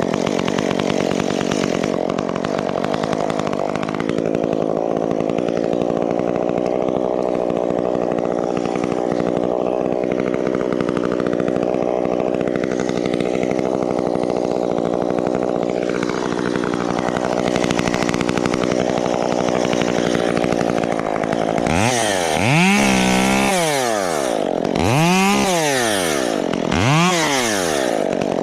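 Chainsaw engine held at a steady high speed for about twenty seconds, then revved up and down several times near the end.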